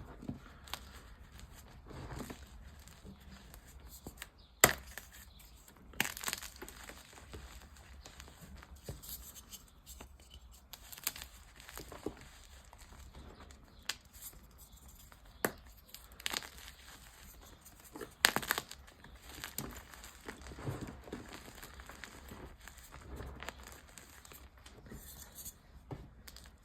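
Dyed gym chalk being crunched and crumbled, giving irregular crackling crunches with a few sharp snaps, the loudest about four and a half, six and eighteen seconds in.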